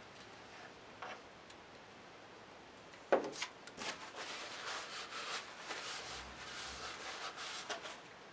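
Hands handling a model rocket body tube: quiet at first, then a sharp knock about three seconds in, followed by several seconds of irregular rubbing and scraping as a porthole is pressed on and the tube is handled.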